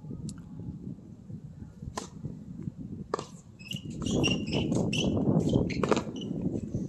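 Tennis ball struck by rackets in a rally: three sharp pops, the first about two seconds in, the next a second later, the last near the end. A low rumble builds over the second half, and short high chirps come in between the hits.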